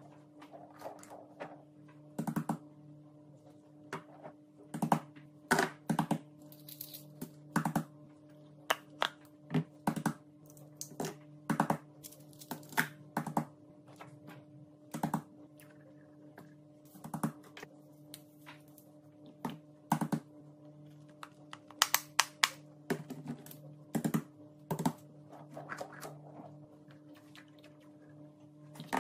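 Plastic and silicone fidget toys being handled and set down on a tabletop board: irregular sharp clicks and taps, about one or two a second, over a faint steady low hum.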